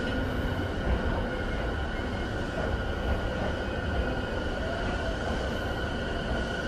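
Stationary E217 series commuter train's onboard electrical equipment running: a steady low hum with a constant high-pitched whine, heard inside the car with the doors open.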